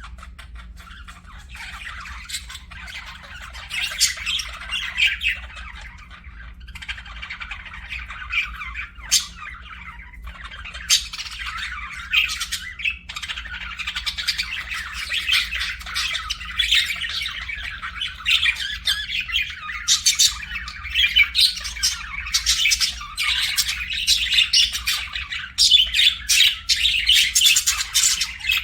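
Budgerigars chattering and warbling continuously, with frequent sharp squawks, the chatter growing busier and louder in the second half.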